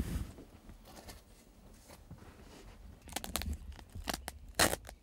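Fabric rustling and crinkling from handling of a pop-up ground blind, quiet at first, then a run of short scratchy bursts about three seconds in and a louder rasp near the end.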